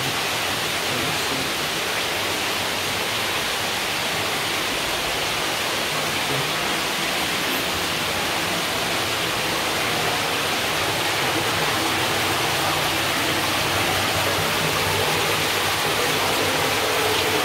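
A steady, even rushing noise, like running water, unchanged throughout.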